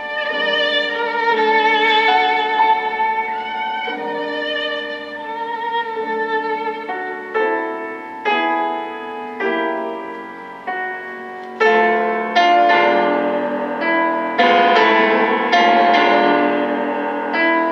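Classical violin and piano music played through a single-ended tube amplifier with Cunningham CX-345 output tubes. A violin melody with vibrato leads at first; from about halfway, struck piano chords come in and the music grows louder.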